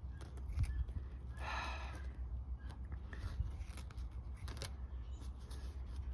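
Scissors snipping at a chicken's feathers, a string of small clicks and cuts, to free feathers gummed up with something sticky. A brief rustle comes about a second and a half in.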